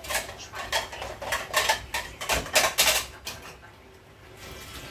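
Cutlery and dishes clinking and clattering in a quick run of knocks for about three seconds, then going quieter.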